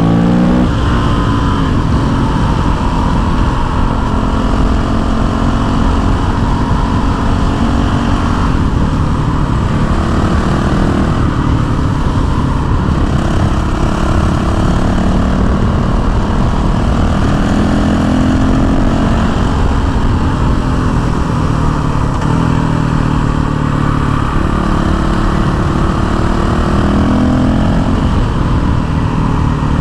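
Honda CRF450L's single-cylinder four-stroke engine running hard on the road, its pitch rising under throttle and dropping back several times as the rider accelerates, shifts and eases off.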